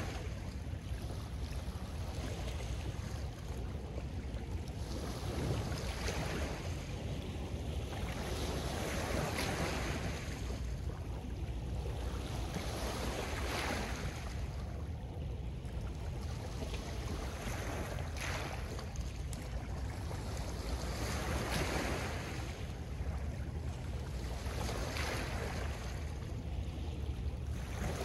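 Small lake waves washing onto a pebbly shore, each one swelling and falling away every two to three seconds, over a steady low rumble of wind on the microphone.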